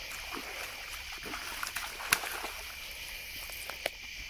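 Water trickling and lapping against the bank under a steady chirring of crickets, with scattered small clicks, the sharpest about two seconds in.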